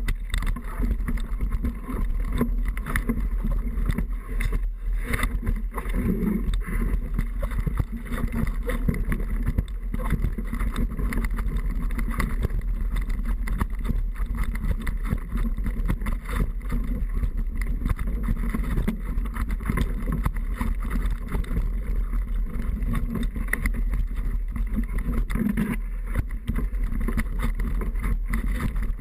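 Steady rushing noise, thick with rapid small clicks and rattles, from a camera riding on a downhill mountain bike.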